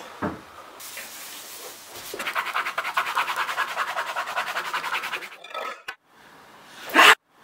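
Pen scribbling fast and hard on paper: a rapid run of rasping strokes lasting about three seconds. A short, loud burst of sound follows near the end.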